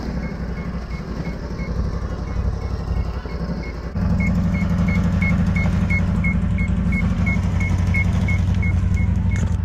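Ski-Doo snowmobile's Rotax engine running while the sled lies tipped over in the snow, a steady low drone that gets louder about four seconds in. A short electronic beep repeats about three times a second over it.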